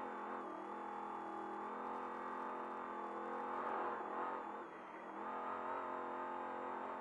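Trophy truck's race engine running hard at high, steady revs, heard from inside the cab at speed. Its level dips briefly about two-thirds of the way through, then picks up again.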